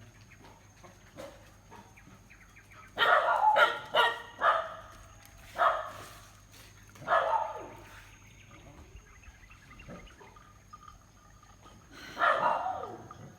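Dog barking: a quick run of barks about three seconds in, then single barks a little later and another near the end.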